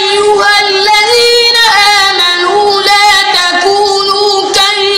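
A boy's voice reciting the Quran in a melodic murattal style, drawing out long, high notes that turn and bend in pitch.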